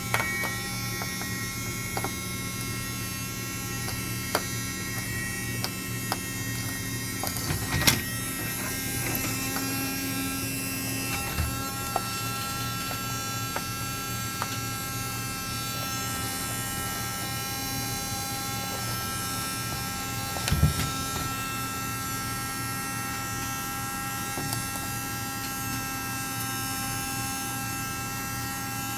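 Small battery-powered Henry desktop vacuum cleaner running with a steady motor hum and whine while picking up small cable pieces, with a couple of brief knocks, about 8 seconds in and again around 20 seconds.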